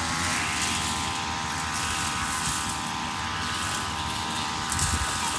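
Two-stroke backpack brush cutter running steadily at cutting speed, a high-pitched engine drone.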